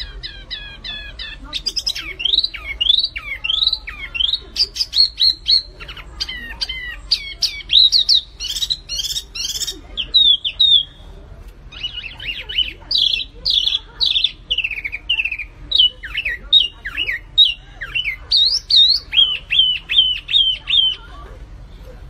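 Small caged songbird in full song: rapid runs of varied whistled notes, sweeping up and down, with a short pause about halfway through. It stops shortly before the end.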